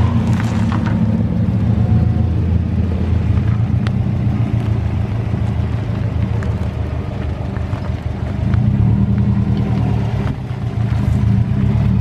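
Subaru WRX's turbocharged flat-four engine idling with a steady low rumble that swells slightly a few times.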